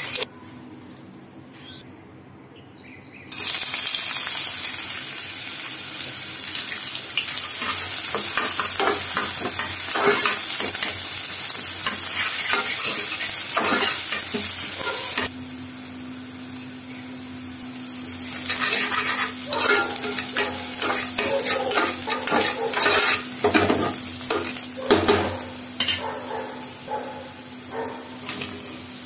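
Food frying in hot oil in a pan, first paneer cubes and then chopped onion and green chillies, sizzling steadily while a spatula scrapes and taps against the pan as it is stirred. The first few seconds are quieter, and a steady low hum joins about halfway through.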